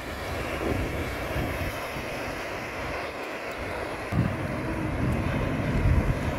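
Steady rushing of sea and wind. From about four seconds in, a low rumble and wash joins it as a wave curls and breaks close to the water's surface.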